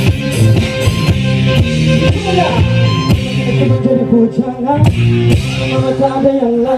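A live band playing an upbeat pop-rock song through stage loudspeakers, with drums, bass and guitar. The cymbals drop out briefly in the middle.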